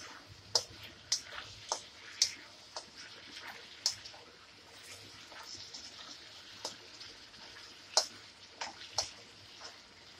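A spatula scraping and knocking against a wok while stir-frying onions and vegetarian chicken pieces, with a faint steady sizzle underneath. The knocks come irregularly, about a dozen sharp clicks.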